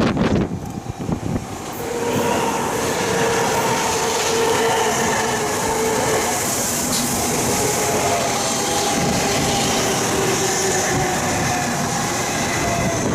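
Doctor Yellow, the 923 series Shinkansen inspection train, running past along the platform. A steady rolling sound with several held whining tones over it sets in about two seconds in, after a brief, uneven rush at the start.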